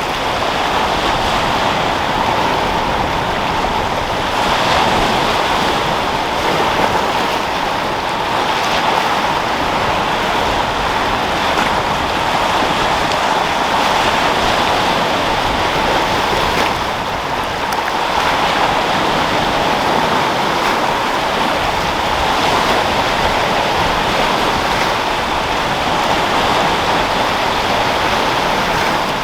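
Sea surf rolling in and breaking steadily, with wind, the noise swelling gently every few seconds as waves wash in.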